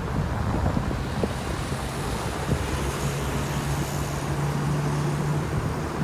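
Road noise from a vehicle driving along, with wind buffeting the microphone and a steady low engine hum from about two seconds in until shortly before the end.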